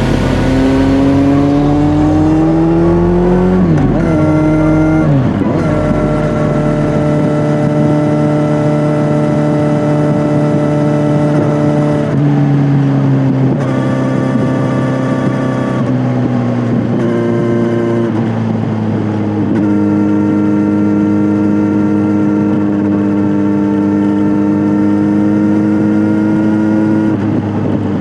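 Kawasaki Z900's inline-four engine through an SC-Project S1 exhaust, ridden on the road: the revs climb for the first few seconds, drop sharply at a gear change about four seconds in, then hold steady at cruising speed with a few smaller dips and rises in engine speed.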